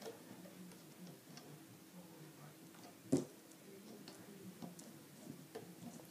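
Faint small clicks and taps of rubber loom bands being stretched onto the pegs of a plastic bracelet loom, with one louder knock about three seconds in.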